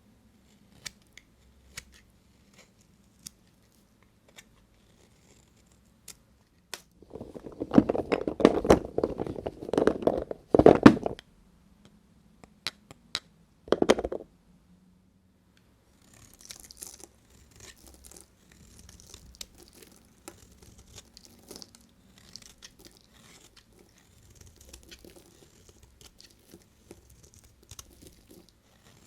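Knife cutting through dry bar soap. A few scattered clicks come first, then about four seconds of loud crunching some seven seconds in, a short crunch near the middle, and a fainter scraping crackle through the rest.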